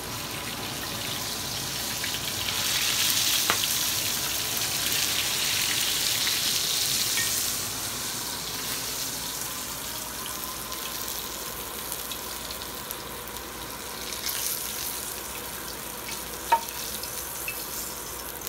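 Whole menpachi (soldierfish) frying in hot oil in a pan: a steady sizzle, loudest for the first several seconds and easing after about eight seconds. A couple of sharp clicks are heard, one a few seconds in and one near the end.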